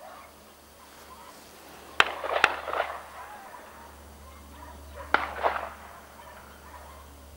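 An animal calling twice, about three seconds apart; each call is a pair of loud, sharp notes.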